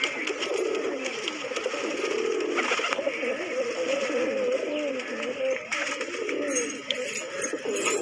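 A flock of domestic fancy pigeons cooing continuously, many wavering coos overlapping one another.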